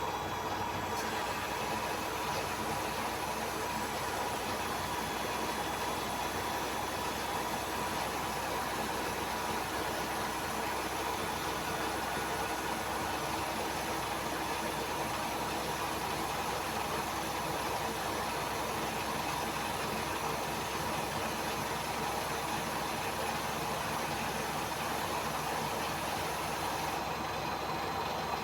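Samsung AddWash WW70K5410WW front-loading washing machine running steadily in its spin and drain cycle, a constant whirring with a steady whine. A faint high hiss comes in about a second in and drops out near the end.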